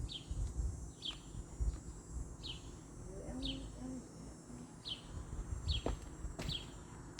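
A bird calling with short, high, falling chirps, repeated roughly once a second, over low rumbling and a few soft knocks.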